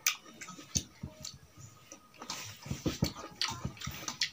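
Wet squelching with small clicks as a hand squeezes a fruit over rice and mixes the rice in a steel plate. The squelching is densest a little past the middle.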